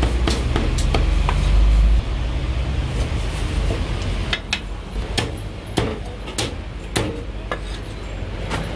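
Heavy Chinese cleaver chopping roast meat on a thick wooden chopping block: sharp chops at uneven intervals with some clatter of meat and utensils. A low steady rumble underneath cuts off about two seconds in.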